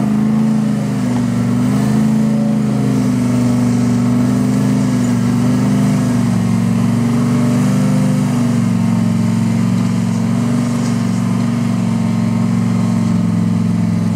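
Off-road truck engine running steadily, its pitch wavering up and down a little.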